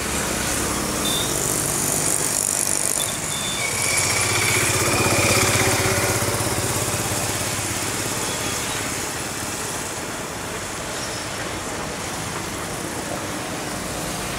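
Road traffic running by close at hand, a steady rumble that swells to its loudest about five seconds in and then eases off.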